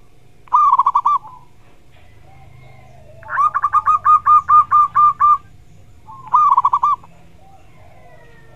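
Zebra dove (perkutut) cooing its song: a short quick run of notes, then a longer run of about nine to ten evenly spaced coos, then another short quick run.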